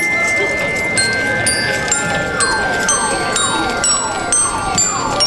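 Bell lyres of a school rhythm band playing a melody of short, ringing struck-metal notes over a held high tone. From about two seconds in, a falling siren-like whoop repeats about twice a second.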